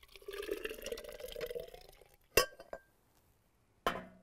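Thick pepper purée poured from a stainless steel saucepan into a glass blender jar for about two seconds, followed by a sharp clink about two and a half seconds in and a knock near the end as the glass jar is set down on the blender base.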